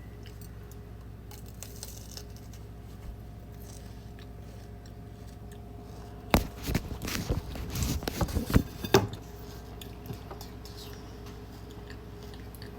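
A bite into a chocolate bar with a crunchy pistachio filling, followed by a few seconds of crackling, crunchy chewing that starts about halfway through. Before that there is only a faint steady hum.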